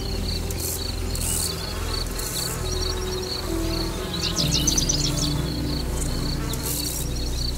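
Night insects, crickets, chirping in a steady high rhythm of about four chirps a second, with a few quick rasps about halfway through. Under them is soft background music of low held notes that change about halfway through.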